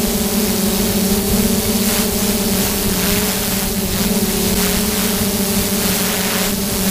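DJI F550 hexacopter's six electric motors and propellers running steadily in flight, a steady multi-tone hum over a rush of air.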